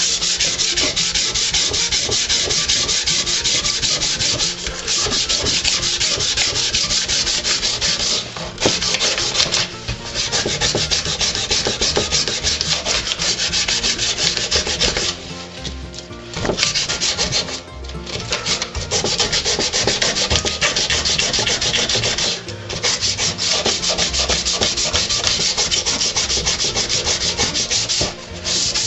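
Sanding the old finish off 1947 Evinrude outboard motor parts: a continuous abrasive scratching, broken by several brief pauses.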